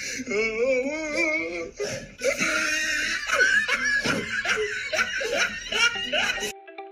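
People laughing hard, with giggling, cut off suddenly near the end. Plucked guitar music starts right after.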